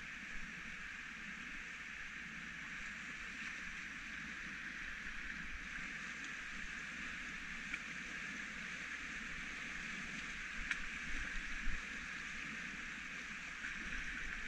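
Whitewater rapid: a steady rushing of water pouring over rocks.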